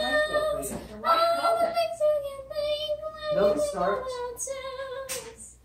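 A young child's high voice singing in long, drawn-out notes, with short pauses between phrases.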